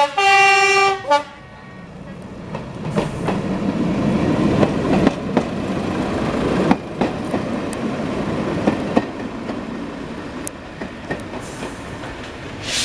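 A British Rail Class 121 'Bubble Car' diesel railcar sounds its two-tone horn, the higher note held for about a second. The railcar then pulls away and passes close by, its diesel engine rumble growing to its loudest midway while its wheels click over the rail joints, then easing as it goes.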